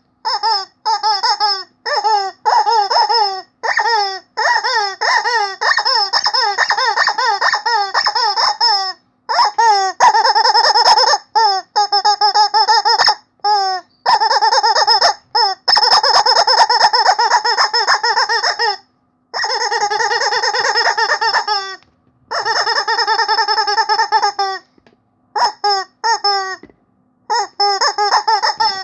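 Squeaky rubber chicken toy being squeezed over and over, giving wavering, warbling squeals: first a run of short squeaks in quick succession, then longer drawn-out squeals broken by brief pauses.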